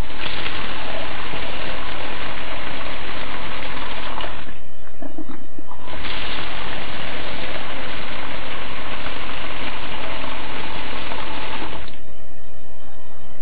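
Liquid gushing through an automatic pouring spout, in two steady pours: one of about four and a half seconds, then after a short break one of about six seconds, each stopping abruptly.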